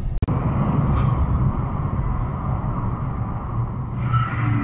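Steady low rumble of a car's tyres and engine on the road, heard from inside the cabin through a dashcam microphone, after a brief dropout just after the start.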